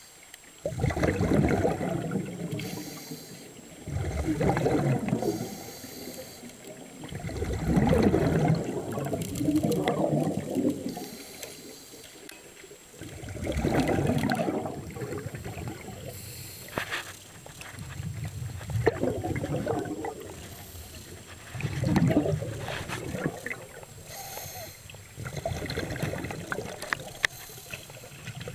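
Scuba diver's exhaled bubbles from the regulator, heard underwater: a muffled gurgling rush that comes in bursts about every three to four seconds, one per breath, with quieter stretches between.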